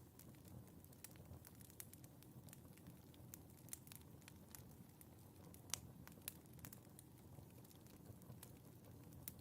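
Wood fire in a fireplace crackling softly over a low steady rumble of flame, with scattered pops and one sharper pop just under six seconds in.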